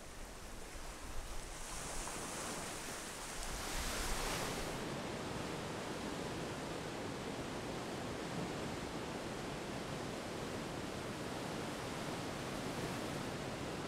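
Ocean waves: a wave washes in with a bright hiss lasting about three seconds, then a steady, even rush of surf.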